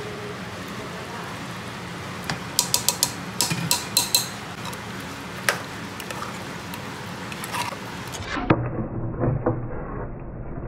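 A metal spoon clinking and scraping against steel cookware as yogurt is worked and scraped into the mutton masala. There is a quick run of sharp clinks about two to four seconds in and another a little later, over a steady low hiss. Near the end come duller clunks and scrapes of stirring in the pressure cooker.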